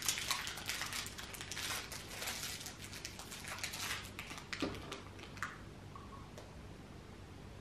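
Plastic crinkling and rustling as the small parts of a baby nasal aspirator are unwrapped and handled, dense for about four seconds, then a few faint clicks as it quietens.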